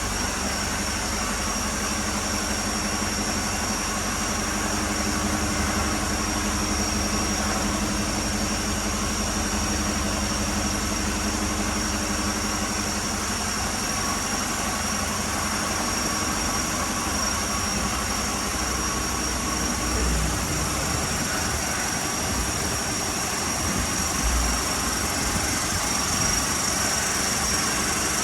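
A vehicle engine idling steadily, with a constant high-pitched tone over it; no siren is sounding.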